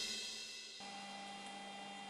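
A music sting's cymbal fades out. About a second in, a faint steady hum with two held tones starts from the small CNC machine, powered up and standing still.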